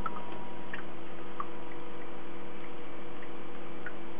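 Water dripping and plopping at an uneven pace from the small cascades of a terrarium, over a steady machine hum.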